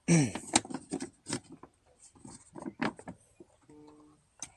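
Irregular clicks and knocks of a wrench and socket being worked inside a car door's stripped-down panel, with a brief steady tone near the end.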